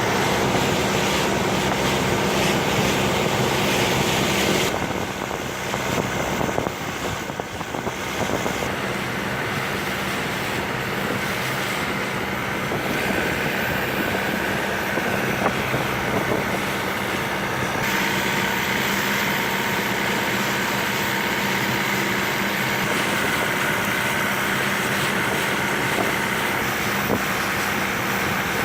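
A boat's engine running steadily at a constant speed, over a rushing noise of wind and water.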